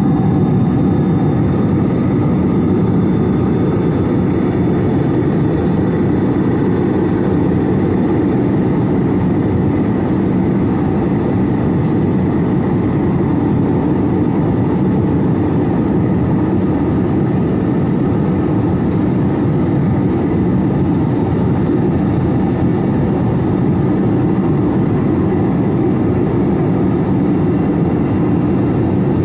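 Steady, deep cabin drone of an Airbus A321-211 in flight: its CFM56-5B engines and the airflow past the fuselage, heard from inside the cabin, even and unchanging, with a faint high whine above it.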